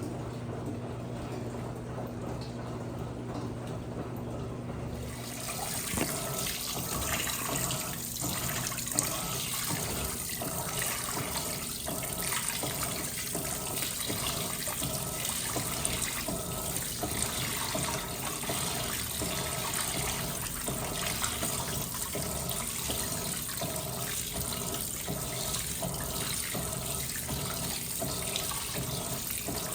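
Electrolux LPE16 washing machine with a steady low hum, then water starts rushing into the tub about five seconds in and keeps pouring steadily.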